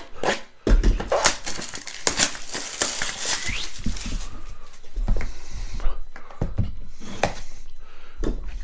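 Cardboard trading-card box being handled by gloved hands: rustling, scraping and taps of cardboard, with a short rising squeak about three seconds in.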